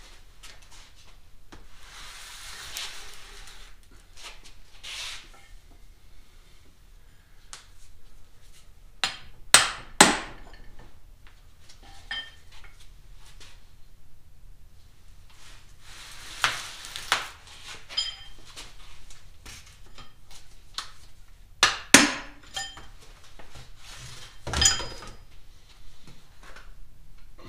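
A hammer tapping the cast rear cover of a car's rear differential to break its sealant loose. Several sharp metallic taps, mostly in pairs with a short ring, and a last knock near the end. Softer scraping and handling noises come between them.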